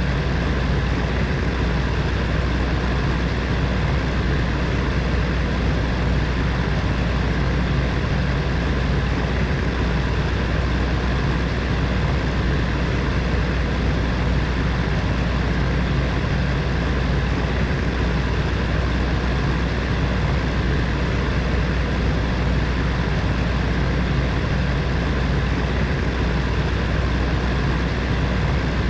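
Heater fan running steadily: a constant whirring rush with a deep low hum beneath and faint steady tones from the motor.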